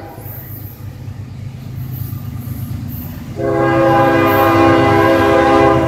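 Approaching CSX freight train's diesel locomotive rumbling low, then sounding its air horn in one long blast that starts about three and a half seconds in and holds for over two seconds.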